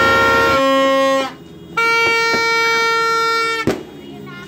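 Plastic party horn blown in two long, steady blasts at one pitch: the first stops just over a second in, the second starts about half a second later and cuts off near four seconds with a sharp click.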